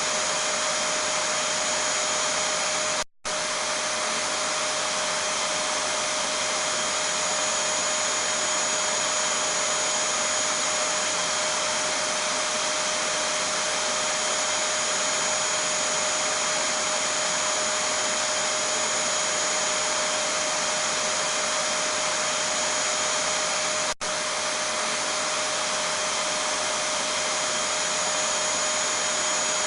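Vacuum cleaner running steadily: a constant hiss with a steady whine on top. The sound cuts out for a split second about three seconds in, and again more briefly later on.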